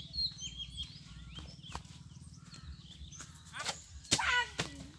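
Birds chirping in short high calls, with a louder call about three and a half to four and a half seconds in, over a steady low hum and a few sharp clicks.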